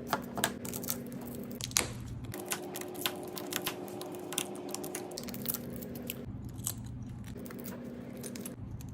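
Rapid, irregular light taps and crunching as the cracked back glass of an iPhone 11 is knocked loose, with small glass chips clicking. A low steady hum runs underneath and shifts pitch twice.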